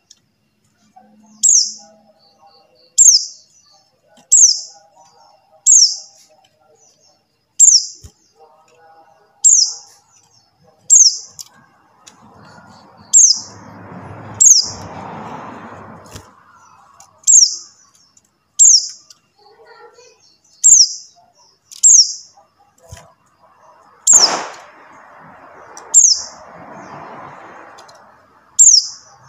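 A buxtoni white-eye (pleci buxtoni) repeating a short, high call note that slides downward, about once every second and a half, used as a lure call to set silent caged white-eyes singing. Two stretches of hissing noise and a sharp click sound under the calls about halfway through and again near the end.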